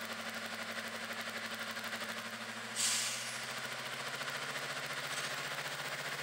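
BR Class 55 Deltic diesel locomotive idling at a standstill, its two Napier Deltic engines giving a steady hum. A short hiss of air comes from the brake system about three seconds in.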